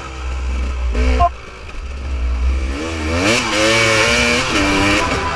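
Dirt bike engine revving up and down while riding. The revs cut off sharply a little over a second in, then climb again about three seconds in.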